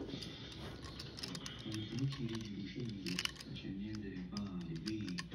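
A faint, muffled voice talking from about two seconds in, over scattered light clicks and taps of handling.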